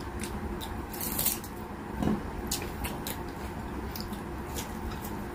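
Close-up eating sounds of someone chewing raw onion and then biting into a tomato slice: short wet crunches and mouth clicks, scattered and uneven, with a louder crunch about a second in.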